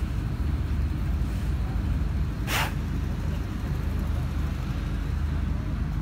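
Steady low drone of an engine running, with one short, sharp hiss about two and a half seconds in.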